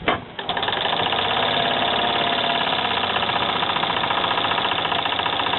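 A 1922 Singer 99K sewing machine running and stitching at a steady speed: a click as it starts, then a rapid, even clatter of the needle mechanism that holds steady throughout.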